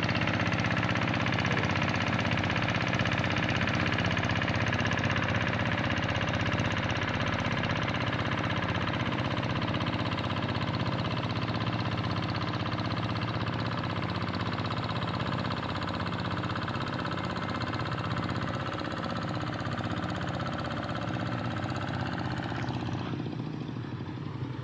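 Tractor engine running steadily while ploughing a wet rice paddy, slowly growing fainter toward the end.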